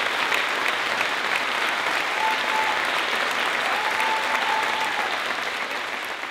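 Large standing audience applauding, a dense steady clatter of many hands clapping. A thin held whistle-like tone sounds twice in the middle.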